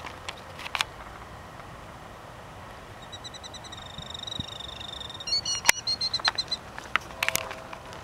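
Killdeer giving a long, rapid, high trill for about three seconds, breaking into a quick series of short notes: the alarm call of a parent bird in its distraction display near the nest. Scattered crunching footsteps on gravel and a sharp click partway through the trill.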